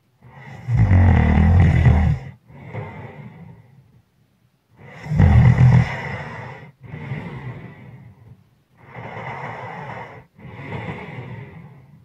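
A sleeping person snoring: two loud, rattling snores on the in-breath, each followed by a breathy exhale, then a softer breath in and out without the rattle near the end.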